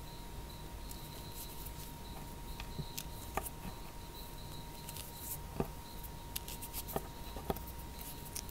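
Fingers crumbling and pressing lumps of dyed cornstarch: soft crackling with a few sharper squeaky crunches, four of them standing out in the middle and latter part. A faint steady tone and a faint pulsing high chirp run underneath.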